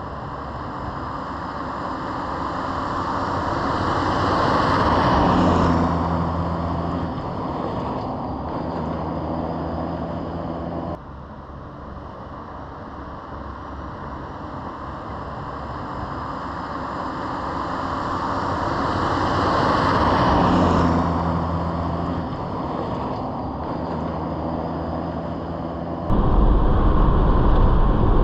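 Toyota Land Cruiser 80 series driving past at speed, twice: tyre and wind noise build to a peak as it nears, then its engine note carries on steadily as it goes by. Near the end the engine and road noise are heard from inside the cabin, much louder.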